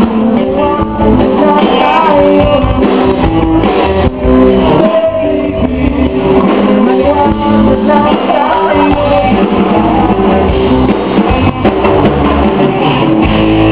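Live band playing a song, with electric guitar and a singer over bass.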